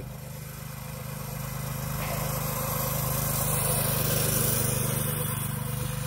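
TrailMaster Storm 200 mini bike's 196cc single-cylinder engine running at a steady speed as the bike rides along the road, getting louder until about four and a half seconds in, then fading slightly. The engine is brand new and not yet broken in.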